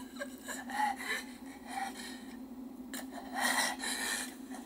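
A person making breathy gasps and whispered sounds close to a microphone, in a few short bursts, over a steady low hum.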